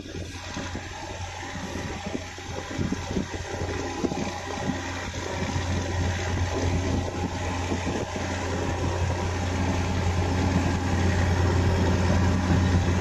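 A boat's engine running with a steady low hum over a hiss of water, growing gradually louder.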